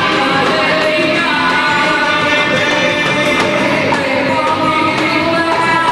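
Loud music with singing, held melodic notes over a dense band accompaniment.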